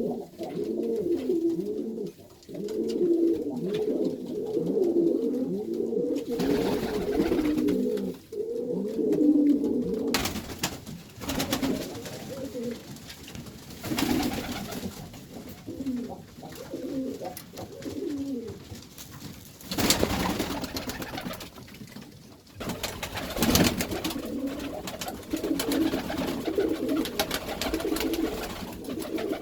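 A flock of Iranian domestic pigeons cooing together in their loft, many voices overlapping in a continuous chorus. A few brief rustling noises break in here and there.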